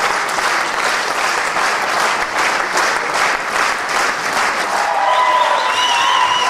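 Theatre audience applauding at a curtain call: dense, steady clapping from a large crowd. About five seconds in, a wavering high tone joins the clapping.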